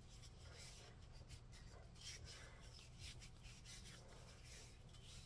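Faint, repeated rubbing of bare hands along a wooden hammer handle, working a first coat of linseed oil into the heated wood.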